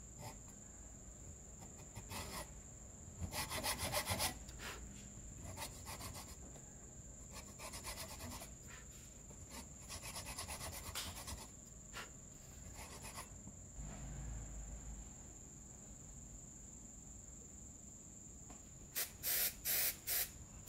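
Hacksaw cutting a small metal part clamped in a vise, in several spells of quick back-and-forth strokes, over a steady high whine. Near the end come four short bursts of noise.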